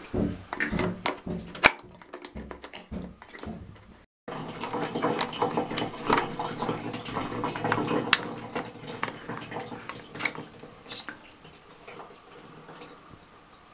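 Clicks, knocks and rattles of plastic cables and plugs being handled at a water level switch box, with a small sensor connector clicked into its socket. A faint crackling patter follows and thins out near the end.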